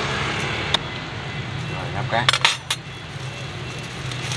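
Thin plastic bag crinkling and a few sharp clicks of metal serving tongs as fried donuts are bagged, with the loudest cluster about two seconds in, over a steady hum of street traffic.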